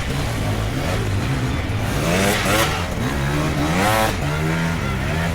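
Dirt bike engines running and revving, the pitch sweeping up and back down sharply twice, about two and four seconds in, over a steady drone of engines.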